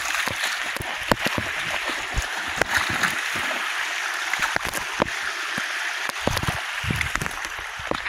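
Creek water running steadily, with irregular clicks and knocks of footsteps on rock throughout and a few low rumbles near the end.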